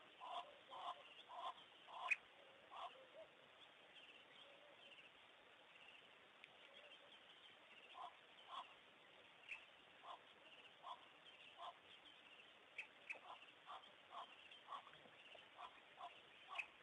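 Short animal calls repeated a few times a second in runs: one run in the first three seconds, another about halfway through, and a denser run near the end, over a faint steady background hiss.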